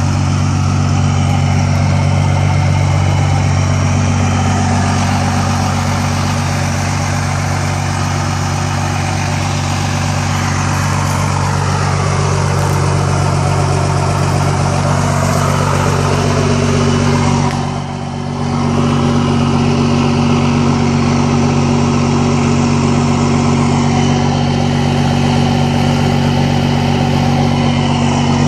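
A 1991 Dodge W250's intercooled Cummins 5.9-litre inline-six turbo diesel idling steadily through a 5-inch exhaust stack. About two-thirds of the way in the sound is briefly muffled.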